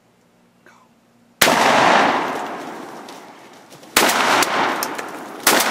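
Three shotgun blasts, about a second and a half to two and a half seconds apart, each ringing out in a long fading echo. The first blast is the loudest. They are shots fired at wild turkeys at close range.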